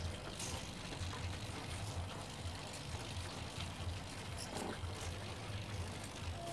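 Hobby servos of an animatronic eye mechanism buzzing as they drive the eyeballs and 3D-printed eyelids, a low uneven buzz with a few faint clicks.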